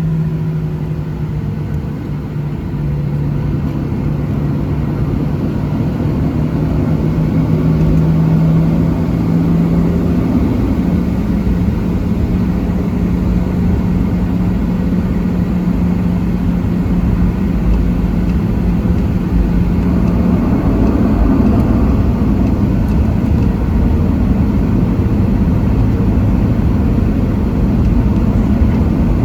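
Boeing 737-700's CFM56-7B jet engines running, heard from inside the cabin as a steady low hum with rushing air noise. The pitch of the hum shifts slightly about 10 seconds in, and the sound grows a little louder and fuller about 20 seconds in.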